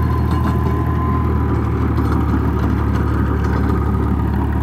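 Diesel engine of a 1986 tractor running steadily under load while it drives a rotary tiller through its PTO, which the owner says has a gear problem. A thin whine sits above the engine note.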